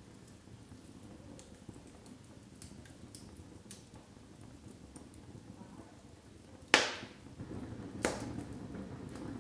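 Logs burning in a fireplace, crackling softly with small scattered ticks, then two sharp loud pops about seven and eight seconds in. After the pops the fire's low rushing sound grows a little louder as the flames flare up.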